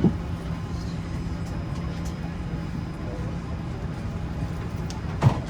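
Steady hum of an Airbus A380 cabin's air-conditioning on the ground, with a low drone. There is a short knock or thud at the start and another near the end.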